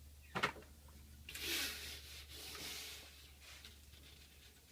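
A sharp knock, then a rubbing, rustling sound that lasts about a second and a half and fades, over a steady low hum.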